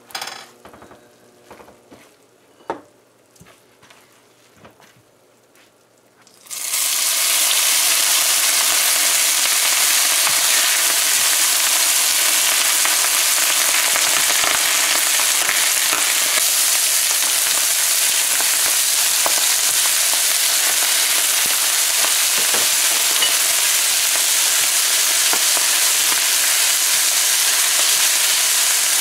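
A silicone spatula scrapes faintly in a pan of caramelized sugar and ghee; about six seconds in, strained boiled rice goes into the hot caramel and a loud, steady sizzle starts suddenly, carrying on as the rice is stirred through.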